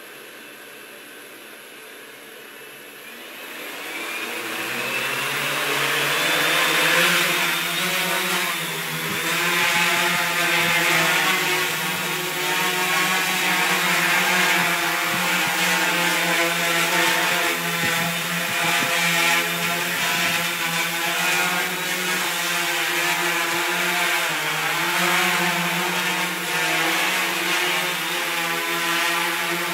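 Quadcopter's electric motors and propellers spinning at idle, then whining up over a few seconds as they speed up for takeoff, then a steady buzz in flight whose pitch wavers as the rotors speed up and slow down.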